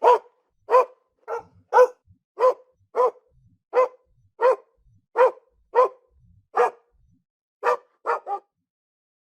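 A dog barking in a steady run of single barks, about one and a half a second. After a short pause near the end come three quick barks.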